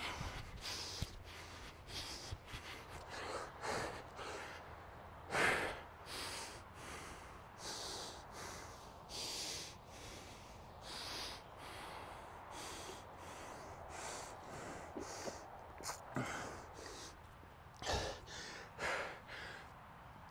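A winded man breathing hard after sprinting up a hill, a run of quick, heavy breaths in and out, roughly one or two a second, with one louder gasp about five seconds in.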